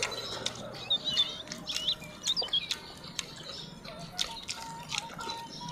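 Close-up mouth sounds of eating grilled chicken by hand: a scatter of wet smacks and clicks as meat is sucked and pulled off the bone. Birds chirp in the background, mostly in the first half.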